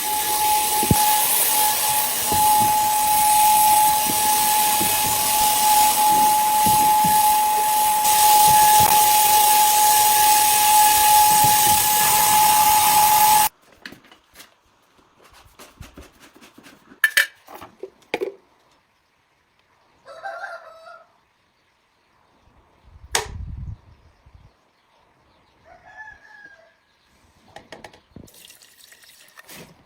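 A loud steady hiss of escaping air or spray with a steady whistling tone, cut off abruptly a little under halfway through. After it, near quiet broken by scattered light knocks and clicks and a couple of short pitched calls.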